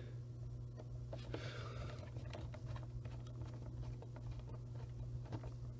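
Faint small clicks and scratches of a tiny Phillips screwdriver turning a screw into a camcorder's plastic case, over a steady low hum.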